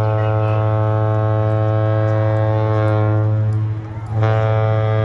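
Large horn sounding a loud long blast at one steady pitch as a ship-salute signal. It breaks off briefly about four seconds in, and a second long blast follows.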